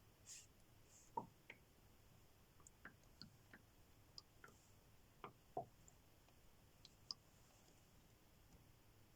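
Near silence broken by a dozen or so faint, irregular clicks and ticks, the loudest about a second in and again at about five and a half seconds.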